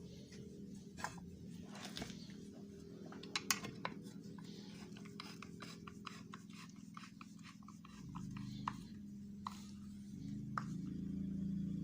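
Small metal parts of a Hilti power tool being handled during repair: a string of light clicks, taps and scrapes. A low steady hum underneath grows louder about eight seconds in.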